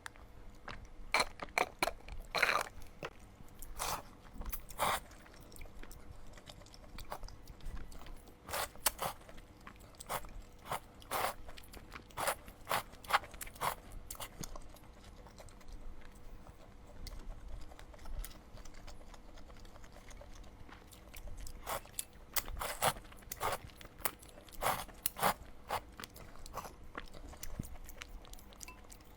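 Close-miked eating: crunchy bites and chewing, sharp crisp crackles coming in irregular clusters, busiest in the first few seconds, in the middle stretch and again over the last few seconds.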